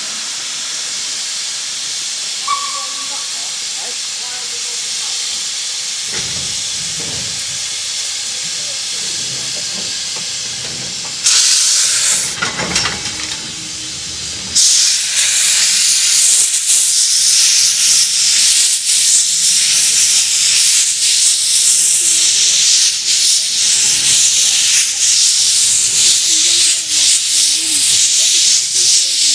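Steam saddle tank locomotive with a steady hiss of steam while standing, then a sudden loud burst of steam about eleven seconds in. From about fifteen seconds it pulls away with its wagons amid loud, rough steam hissing and uneven exhaust beats.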